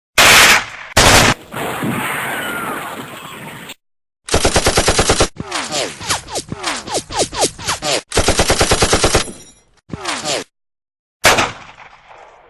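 Gunfire sound effects: two loud shots about a second apart, then several bursts of rapid machine-gun fire at about ten rounds a second, with falling tones running through them, and a single shot near the end.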